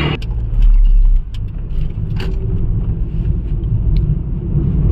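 Honda City on the move, heard from inside the cabin: a steady low rumble of engine and road, swelling louder for about half a second near the start, with a few light ticks and rattles.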